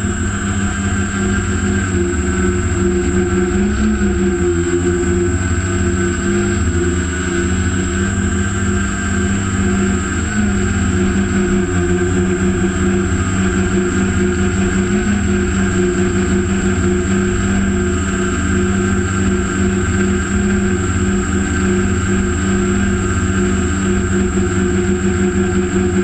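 Heavy-lift quadcopter's electric motors and propellers droning steadily, heard from the craft's own onboard camera, with a low rumble underneath and a thin high whine. The pitch wavers a little now and then as the motors adjust.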